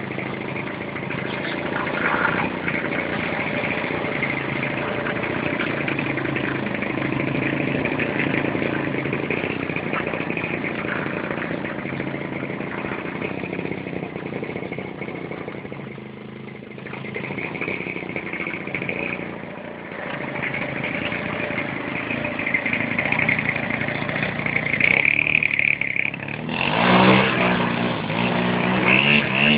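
Fuji 50cc two-stroke petrol engine of a large radio-controlled Cessna 172 model running at varying throttle. It eases off twice in the middle, then opens up with a rise in pitch near the end.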